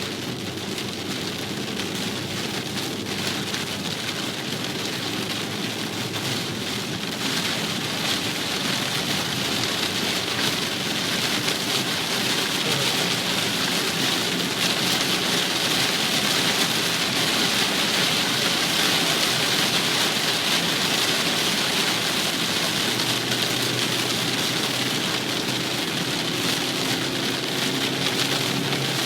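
Steady rain falling, getting a little louder about a quarter of the way in.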